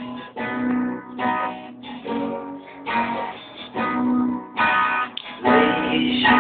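Acoustic guitar strummed in a slow, even rhythm, a chord struck roughly every second and left to ring.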